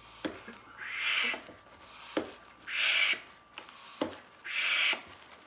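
Hand air pump of a Stuffaloons balloon stuffer being worked, inflating the balloon inside its dome. There are three strokes about two seconds apart, each a click followed by a rush of air.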